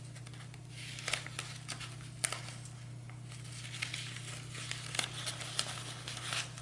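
Sheet paper rustling and crinkling while a strip of painter's tape is pressed and folded over the edge of a paper stencil, with small scattered clicks and crackles. A steady low hum runs underneath.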